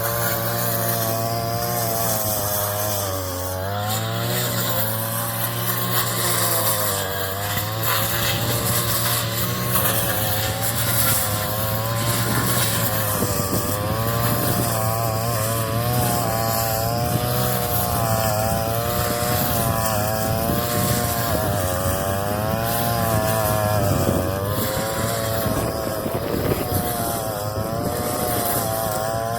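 Small engine of a straw-cutting machine running continuously while cutting rice straw, its pitch wavering up and down every second or two as the load changes.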